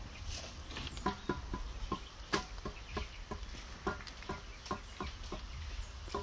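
A mason's steel trowel tapping and scraping on concrete blocks and fresh mortar while setting blocks: a run of short, irregular knocks, some with a brief metallic ring, about two or three a second.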